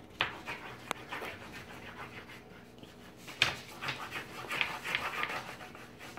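Crayon scribbling on paper laid on a wooden table: quick, irregular scratchy strokes, with a few sharp taps, the loudest about three and a half seconds in.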